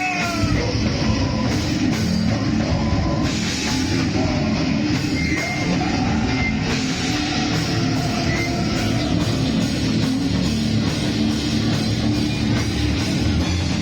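Live heavy rock band playing loud: electric guitars over a drum kit.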